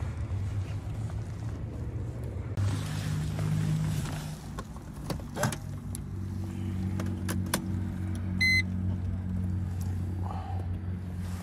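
Ignition key clicking in the lock of a 2004 Mercedes C230 Kompressor, with a short electronic chime from the dash. The supercharged four-cylinder engine runs steadily at idle.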